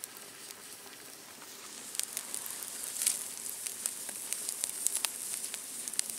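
Wood campfire crackling with frequent sharp pops, and bratwurst sizzling on a wire grate over the flames.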